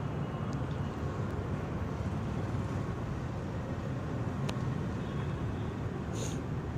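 Steady low rumble of outdoor background noise by railway tracks, with a couple of faint sharp ticks and a brief high hiss near the end.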